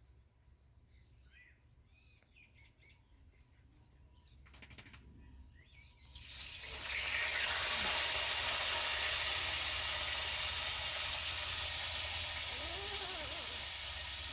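A few faint, short high squeaks, then about six seconds in a loud, steady rushing hiss comes in and holds evenly.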